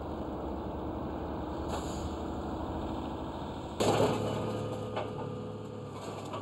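Diesel excavators running at a scrap-metal yard, with a steady engine hum and scrap rattling. A loud clatter of metal comes about four seconds in, and a smaller knock follows a second later.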